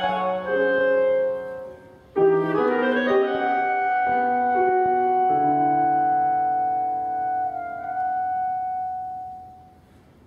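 Clarinet and grand piano playing a contemporary classical piece. The music breaks off briefly about two seconds in, a new piano chord enters, and a long held note fades out near the end.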